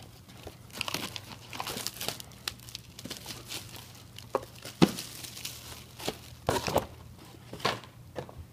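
Cardboard boxes being handled by hand: a product box pulled out of a shipping carton, with irregular rustling and crinkling and scattered scrapes and knocks, the sharpest knock a little past halfway.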